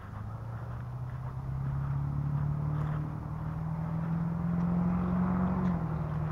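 Motor vehicle engine running with a steady low hum that grows louder over the first few seconds and changes pitch near the end, over footsteps on gravel.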